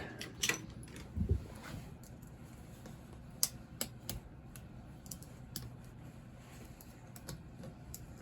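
Scattered light clicks and taps of hand tools being picked up and handled, with a dull thump about a second in.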